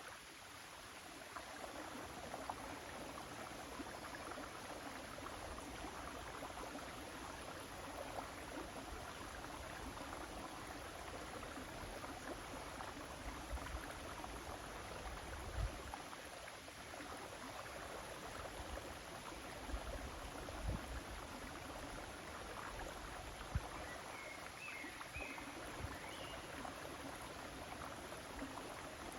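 River water running steadily, with a few brief low rumbles partway through and a few faint high chirps near the end.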